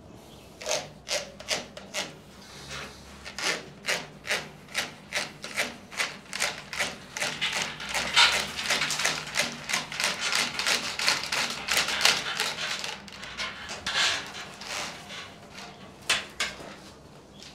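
An electrician's draw tape (fish tape) being fed hand over hand through a PVC electrical conduit in the wall, rasping against the pipe. Short scraping strokes come about two a second, running together into a denser continuous rub in the middle.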